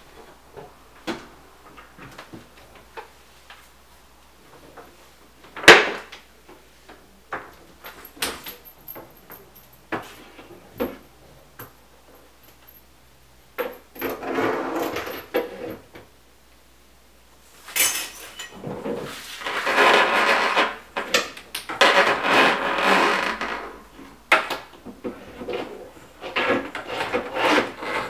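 Hands-on installation work: scattered clicks and knocks, one sharp loud bang about six seconds in, then stretches of scraping and rubbing in the second half.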